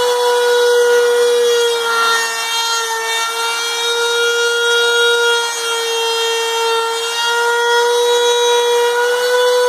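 Makita router working as the spindle of a CNC router, running with a steady high-pitched whine as its bit cuts a letter out of a wooden board. The pitch dips slightly a few times as the bit bites into the wood.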